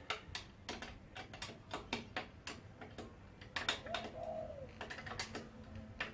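Irregular metal clicks and clinks of spanners working on a motorbike's chain adjuster lock nut, about three a second. A dove coos once in the background about four seconds in.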